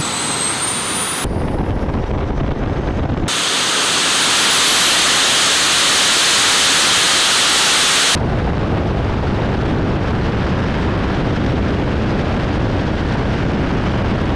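Small turbine jet engines running at high power: a loud rushing exhaust roar with a steady high-pitched whine, getting louder about four seconds in and shifting abruptly in tone a few times.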